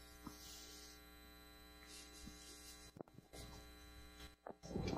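Steady electrical mains hum, a low buzz made of evenly spaced tones, with faint hiss above it. There is a single click about three seconds in.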